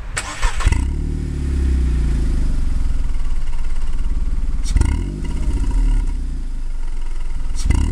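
Exhaust note of a Seat Ibiza 6L's 1.2-litre 12-valve three-cylinder engine, warmed up, through an aftermarket NAP middle silencer and L&W rear silencer. It is revved up about a second in and held at raised revs, with short sharp blips near the start, about five seconds in and near the end.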